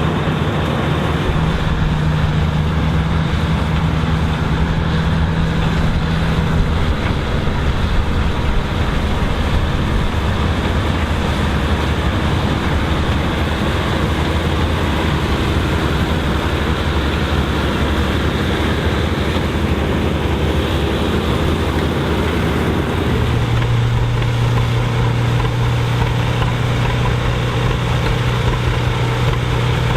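Vintage combine harvester running steadily while harvesting corn, a loud engine and machinery drone. About three-quarters of the way through the engine note shifts lower to a new steady hum.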